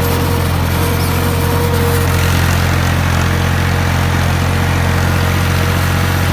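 Al-Ghazi tractor's diesel engine running steadily while it pulls a disc harrow through the soil. A faint steady whine fades out about two seconds in.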